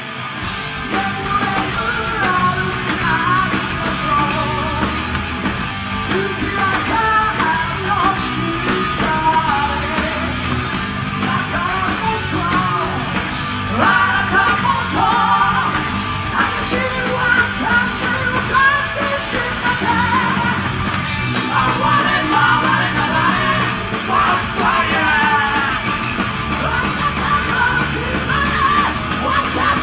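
Heavy metal band playing live: electric guitar, bass and drums, with a male lead vocalist singing and yelling over them.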